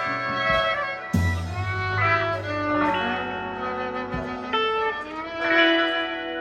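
Live band playing an instrumental passage: sustained electric guitar chords over bass, with the bass changing to a new low note about a second in.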